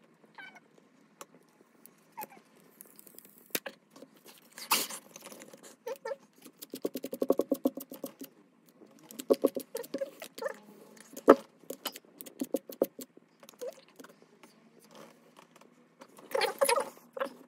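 Fingers tapping, pressing and rubbing on a phone's glass screen protector: irregular small clicks and light knocks, with a quick run of rapid clicks and a louder scraping cluster near the end.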